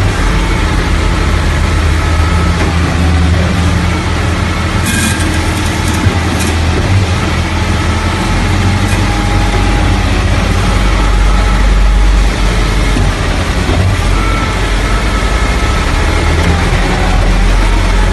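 Heavy diesel engines of a truck-mounted concrete pump and a concrete mixer truck running steadily while concrete is being pumped, with a few short sharp knocks about five and six seconds in.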